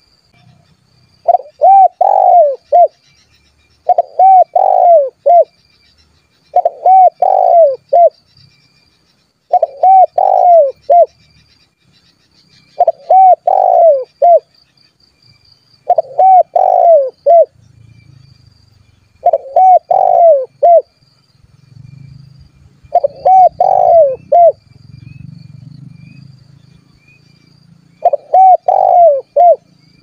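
Spotted dove (tekukur) calling: nine phrases of several quick coos each, about every three seconds, with a longer pause before the last one. This is the vigorous call of a male, used as a lure to draw in wild doves.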